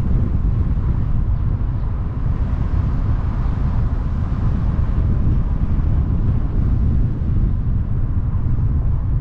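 Wind buffeting the microphone of a camera mounted outside a moving car, mixed with road and tyre noise: a loud, steady low rumble.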